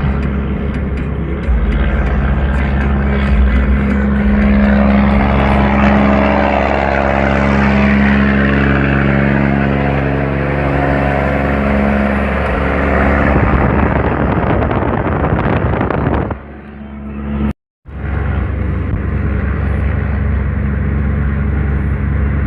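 Mercedes-Benz Atego truck's diesel engine running loudly through a straight-through exhaust with no muffler. The sound swells through the middle, drops away about 16 seconds in, cuts out completely for a moment, then comes back steady.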